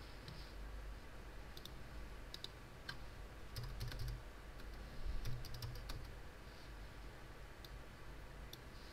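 Faint, scattered clicks of a computer keyboard and mouse as colour values are set in an editing program.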